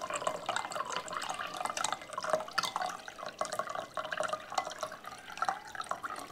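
Filtered water running and sputtering from the outlet hose of a pressurised Sagan Life AquaBrick filter, an irregular patter of drips and gurgles as air comes through the line with the water.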